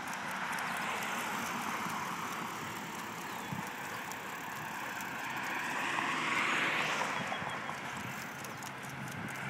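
Bicycle riding along a paved trail: a steady rush of wind and tyre noise that swells for a moment about six seconds in.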